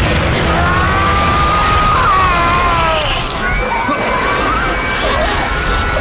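Dramatic sound-effect mix of a magical energy blast: a loud, steady rushing noise with long sliding high tones over it, blended with the orchestral score.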